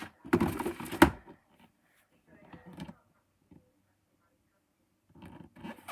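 Handling noise: a loud rustling scrape under a second long, ending in a sharp knock about a second in, then a few faint knocks and rustles.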